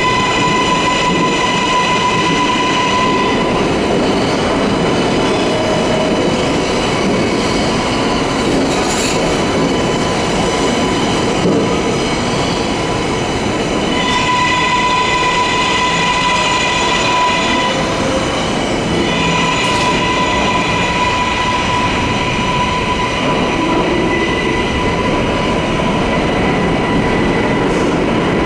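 New York City subway train running with a steady rumble, and a high steady whine that comes and goes about three times.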